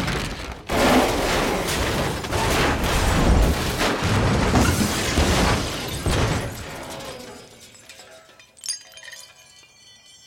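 A taxi cab crashing and rolling over: a dense run of loud impacts, crunching metal and shattering glass for about six seconds as the car flips onto its roof. It then dies away, with a short ringing clatter of settling debris near the end.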